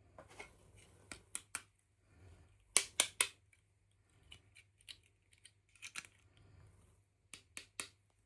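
Sharp small clicks and snips in quick clusters of two or three, the loudest group about three seconds in: hands working small plastic toy parts and packaging.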